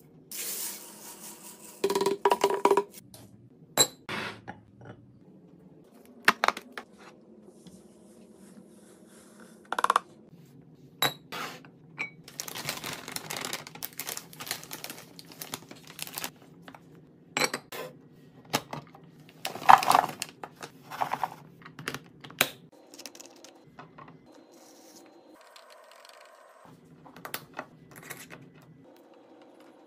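A string of clicks, clatters and rustles. Small hard candy beads are scooped and poured into a glass jar, laundry detergent pods are tipped from a crinkly plastic pouch into a glass jar, and a metal lid is screwed onto a glass spice jar. The loudest clatter comes about two-thirds of the way in.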